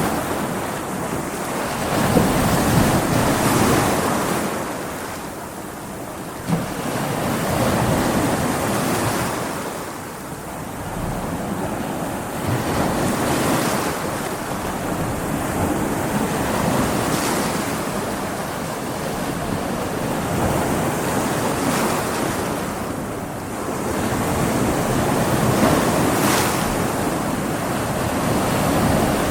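Big ocean waves breaking and washing on a beach in stormy surf, the roar swelling and ebbing every few seconds, with wind and wind buffeting on the microphone.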